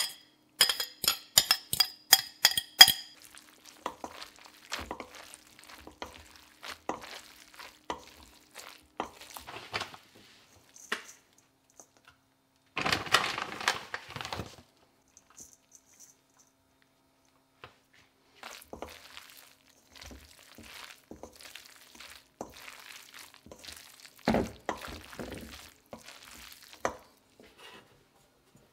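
A fork clinks against a ceramic bowl about ten times in quick succession, then wooden spoons stir and toss pasta in a stainless steel bowl with soft scattered knocks and scraping, and a brief rustling burst about halfway through.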